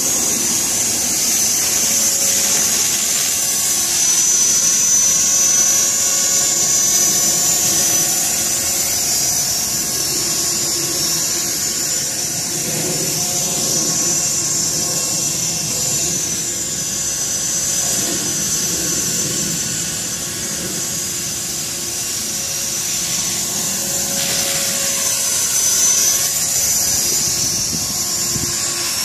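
Electric 450-size RC helicopter in flight: a steady high motor whine over the whoosh of the spinning rotor blades, swelling and easing a little as the helicopter moves about.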